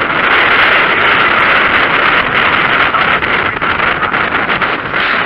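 Bus engine and road noise heard from inside the moving bus: a loud, steady rumble and rush.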